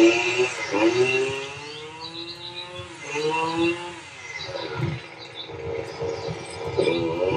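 Lawnmower engines revving up and down in several swells, the pitch rising and falling, with faint bird chirps.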